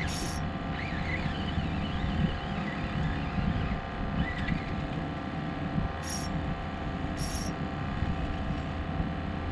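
A boat engine running steadily in a low drone, with wind on the microphone. Two short, high hissing zips come about six and seven seconds in.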